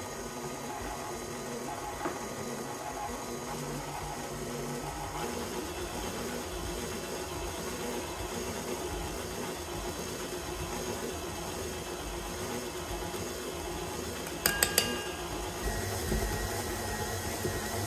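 KitchenAid Classic stand mixer running steadily, its flat beater churning dry, crumbly cracker dough in the steel bowl as water is worked in. A few sharp clicks about fourteen seconds in.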